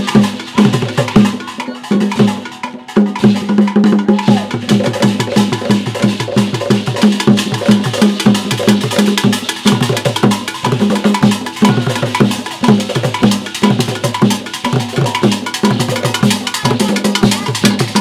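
Traditional Ghanaian drum ensemble playing a fast, steady rhythm on wooden barrel drums with skin heads, struck by hand and with sticks, with sharp woody clicks riding over the drum tones. The drumming eases briefly about two seconds in, then picks up again.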